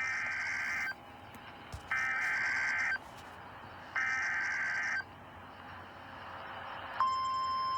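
Emergency Alert System header: three one-second bursts of warbling data tones with about a second of static between them. About seven seconds in, a single steady, high alert tone begins, signalling that a weather warning follows.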